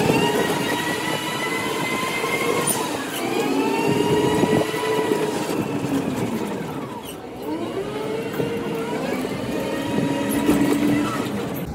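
Electric rickshaw's motor whining, its pitch rising and falling three times as it speeds up and slows down in a narrow lane, with road rattle underneath.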